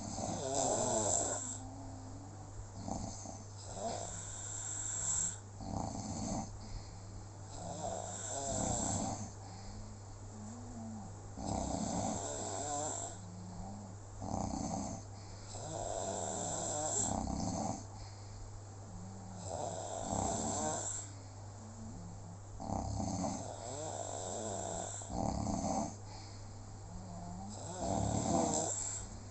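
Snoring in slow, regular breaths, a loud rasping snore about every four seconds, eight in all.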